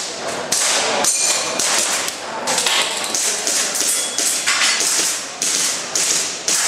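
Airsoft pistol firing a rapid string of sharp cracking shots, about two a second with brief pauses between groups, as a shooter runs a timed ActionAir course of fire.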